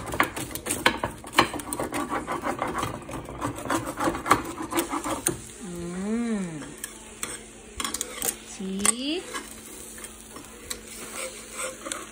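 A pizza cutter wheel rolling through a baked pizza's crisp crust on a pizza stone, a quick run of crunching, scraping strokes for about the first five seconds. Later come two brief pitched sounds that rise and fall.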